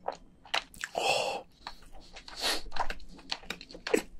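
Close-miked wet chewing of soft cooked crayfish meat: a string of short moist clicks and lip smacks from the mouth.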